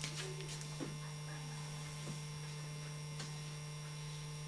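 Steady electrical mains hum, with a few faint light taps and knocks from hands handling a plexiglass display case.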